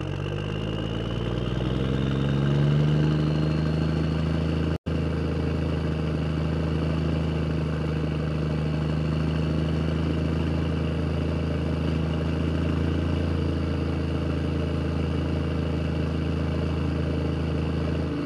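An engine sound rising in pitch over the first two seconds or so, then running at a steady pitch. It cuts out for an instant about five seconds in.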